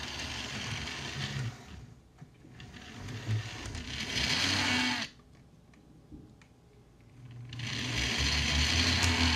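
Model train locomotive's small electric motor whirring as it runs on the track, in three spells: it drops briefly about two seconds in, goes quiet for a couple of seconds in the middle, and starts up again near the end.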